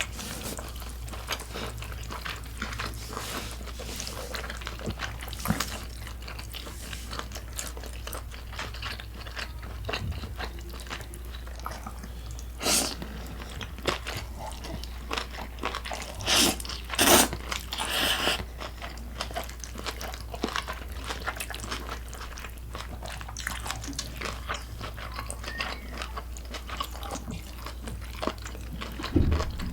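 Close-miked eating: steady chewing full of small wet clicks, with a few louder crisp crunching bites about halfway through.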